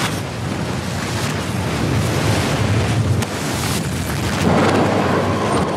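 Film sound effect of a jet airliner explosion and fire: a loud, continuous rush of noise over a low rumble, swelling slightly near the end.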